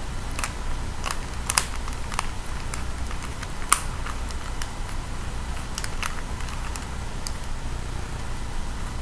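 Rubik's Cube layers being turned by hand, plastic clicking and clacking in irregular quick bursts, some as rapid double clicks. A steady low hum runs underneath.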